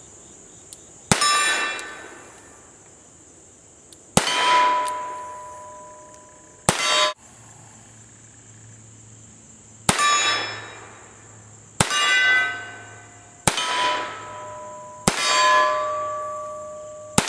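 Webley Mk IV revolver firing .38 Smith & Wesson rounds, single shots every two seconds or so, about seven in all. Several shots are followed by the ringing clang of a struck steel target that fades over a second or two.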